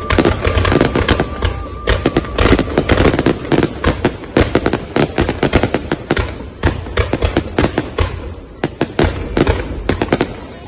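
Fireworks display: a dense, rapid barrage of bangs and crackling, easing briefly about eight seconds in.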